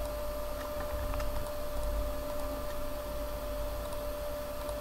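Steady electrical hum and low room noise of a desk recording setup, holding one constant tone, with a few faint computer-mouse clicks.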